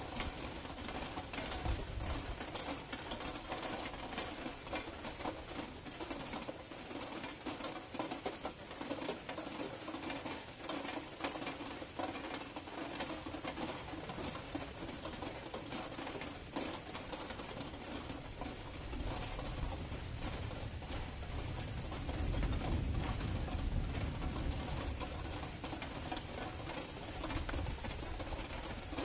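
Rain falling steadily during a night thunderstorm, a constant hiss with fine patter, with a low rumble of distant thunder swelling about two-thirds of the way through.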